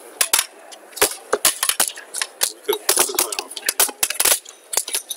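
Backgammon checkers clacking down on the board and against each other as they are moved, a quick, irregular run of sharp clicks.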